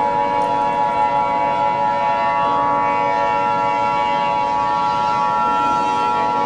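Emergency Alert System attention tone: a steady, unbroken electronic alarm tone that interrupts regular programming ahead of an emergency broadcast.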